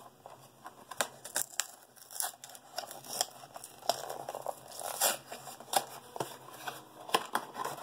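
A Funko Mystery Minis blind box being opened and the foil bag inside torn open and crinkled: irregular rips and crackles of thin packaging.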